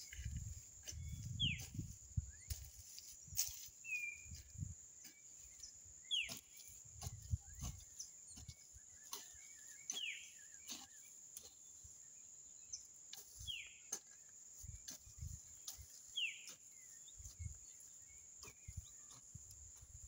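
Hand hoe chopping and scraping weedy soil in irregular thuds and clicks. A bird repeats a short, downward-sliding whistle every three to four seconds, over a steady high whine.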